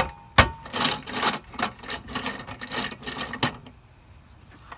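Small single-cylinder Briggs & Stratton engine running unevenly at a low idle, its throttle not hooked up, with a couple of sharp clicks at the start; the sound drops away about three and a half seconds in.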